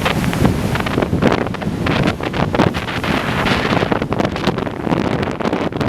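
Strong wind buffeting the microphone, a loud gusty rumble and flutter, with ocean surf beneath it.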